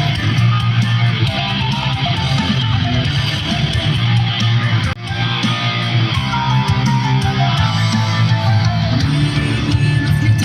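Guitar-led music, with electric guitar, that breaks off for an instant about halfway through and carries on.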